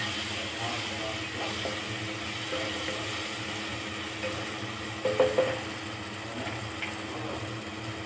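Chopped onions sizzling in hot oil in a pan while being stirred with a wooden spatula, with occasional scrapes of the spatula against the pan, the loudest about five seconds in.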